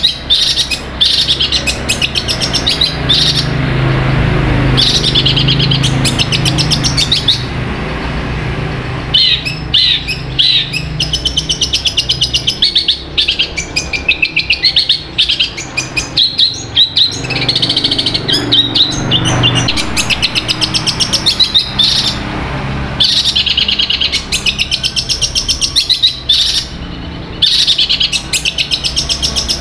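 Caged long-tailed shrike (cendet) singing almost nonstop: long runs of rapid, fast-repeated high notes, broken by short pauses, in the mimicking song that kicau fanciers call gacor.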